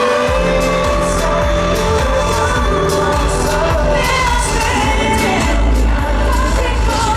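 Live pop music over a concert sound system: sung vocal lines over synths, with a heavy bass coming in just after the start.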